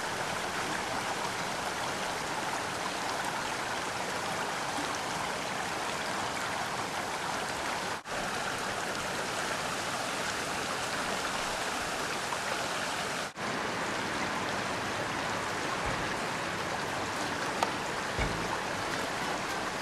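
Shallow creek water running steadily over a gravel bed, with two brief dropouts in the sound and a few soft low bumps near the end.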